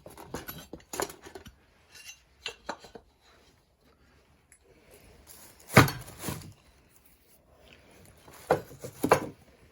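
Irregular metallic clinks and knocks from a file and a chainsaw chain being handled while moving from one tooth to the next. The loudest knock comes about six seconds in.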